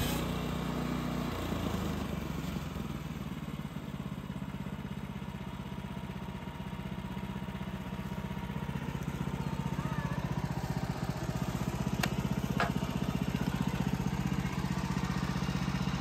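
Woodland Mills HM126 portable band sawmill's gas engine running steadily under load as its band blade saws through white oak. There are two short sharp clicks about three quarters of the way through.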